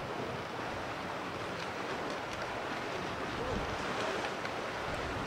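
Steady wash of seawater lapping around a floating fishing platform.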